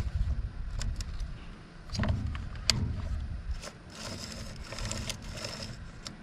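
Stihl MS192 chainsaw being pull-started on choke: the recoil starter cord is pulled in a few rumbling surges with clicks and rattles, and the engine does not catch.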